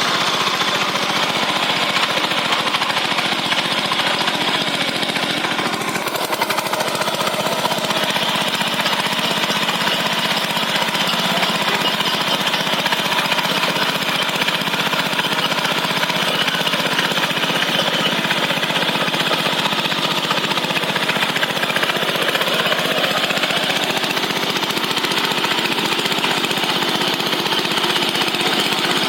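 Ploughing machine's engine running steadily with a fast, even chugging.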